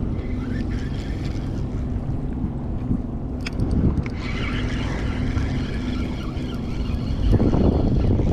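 A steady, low engine drone with wind buffeting the microphone.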